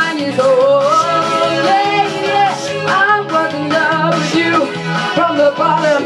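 A woman singing karaoke into a handheld microphone over a backing track, with a steady, repeating bass beat underneath.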